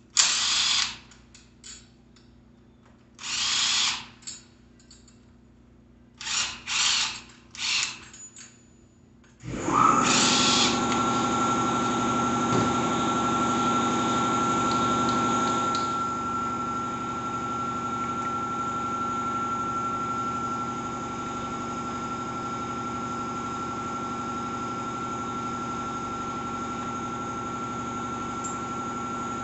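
A few short, loud, hissing bursts, then an electric air compressor's motor starts about ten seconds in and runs steadily with a constant whine. The hiss over it drops away a few seconds later.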